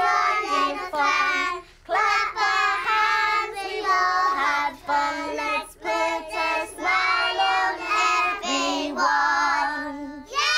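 Young children singing a song together in short phrases with brief breaks between them.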